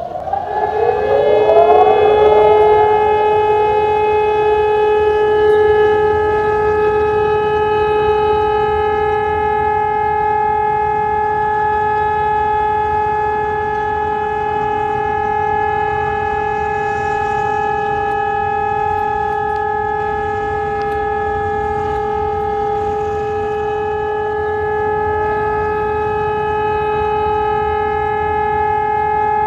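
ECN 1200 electronic civil-defence siren sounding a test signal: it glides up in pitch over the first two seconds, then holds a loud, steady two-note tone, with a faint echo trailing the rise.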